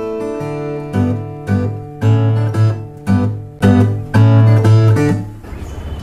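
Background music of strummed acoustic guitar chords, fading away about five seconds in.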